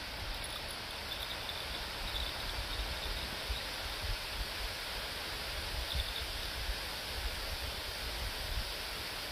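Wind rumbling on the microphone over a steady rustling hiss of leaves, with faint high insect chirping now and then.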